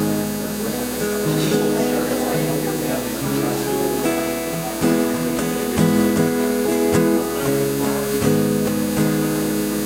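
Acoustic guitar being played: chords strummed and notes picked, ringing on and changing about once a second, with a few sharper strums in the second half.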